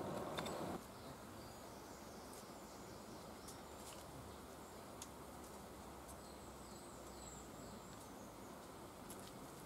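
Faint, high-pitched chirps and twitters of small birds over a quiet outdoor background, with a few light ticks. A louder rushing noise cuts off abruptly under a second in.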